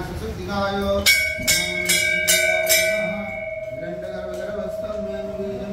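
A metal bell struck about five times in quick succession, a little over two strikes a second, then left ringing on as it slowly fades. Voices are heard just before the first strike.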